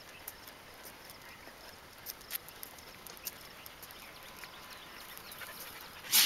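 Soft, irregular footsteps and dog paws on an asphalt road: scattered light clicks and scuffs, with one much louder, sharp scrape about six seconds in.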